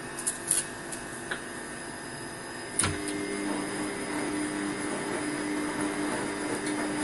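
A steady mechanical whirring hum. There is a sharp click about three seconds in, after which a humming tone grows louder.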